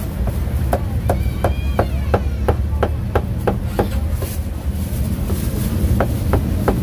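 A meat cleaver chopping braised meat on a thick round wooden chopping block at about three chops a second. The chopping pauses for a second or two partway through, then starts again near the end.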